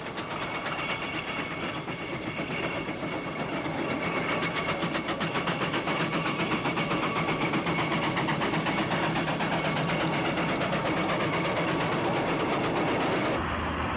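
Steam traction engine running on the road, its exhaust beating in a steady rhythm of about three to four beats a second. Near the end the sound switches abruptly to a lower, steadier rumble.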